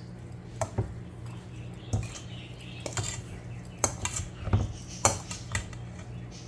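Metal utensil clinking and scraping against a stainless steel mixing bowl as chopped tabbouleh salad is tossed, with sharp clinks at irregular intervals, about one a second.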